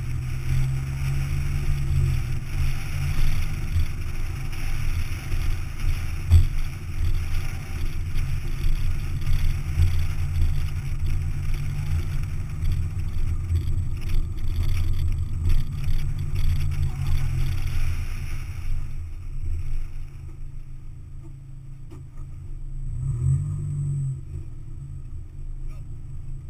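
Open-top sports car driven hard on an autocross course: the engine running strong with wind and road noise over the open cabin, easing off about 19 seconds in and picking up briefly a few seconds later.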